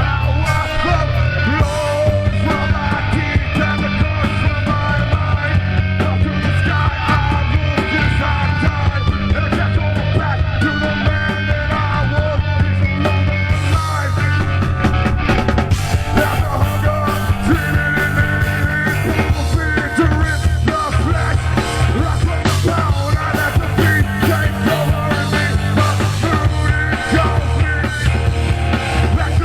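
Live rock band playing a punk-style song at full volume, with electric guitar, bass and drums. The drumming grows busier about halfway through.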